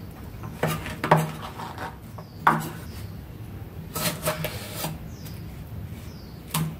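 Kitchen knife and hands working on a wooden chopping board: a few knocks as luffa slices are pushed aside, then a short rasping scrape as the blade saws into a tomato about four seconds in, and a sharp tap of the knife on the board near the end.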